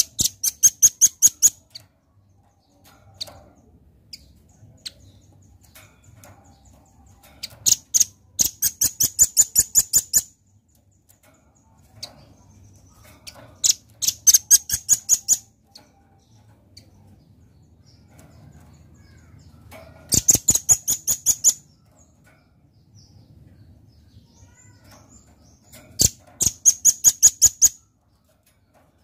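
Velvet-fronted nuthatch calling: five bursts of rapid, sharp, high-pitched notes, about six or seven a second, each burst lasting a second or two and spaced several seconds apart.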